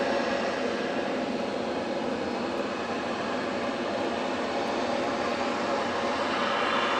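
A steady, unexplained droning hum from the night sky: several steady tones over a rushing noise, easing slightly in the middle and swelling again near the end. The listeners are unsure whether it comes from a mosque loudspeaker or from the sky itself.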